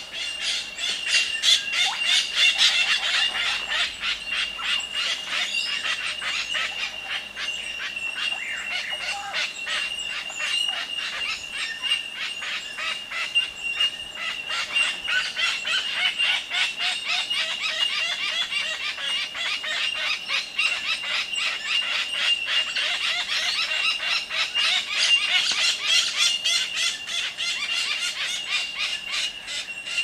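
Dense outdoor chorus of bird calls and squawks with rapid clicking, over a steady high-pitched whine that runs without a break.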